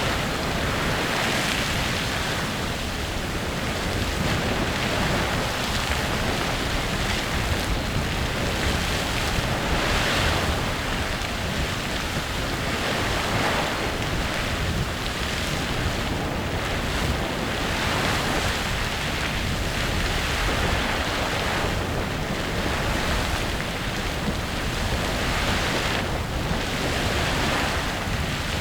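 Clepsydra Geyser erupting continuously: a steady rush of water and steam jetting from its vents, swelling and easing in irregular surges every few seconds.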